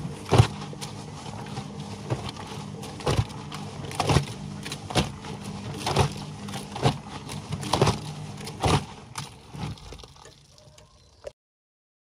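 Whirlpool front-loading washing machine tumbling a wash with its door open: a steady motor hum under wet clothes and soapy water slapping and splashing in the turning drum about once a second. The sound cuts off suddenly near the end.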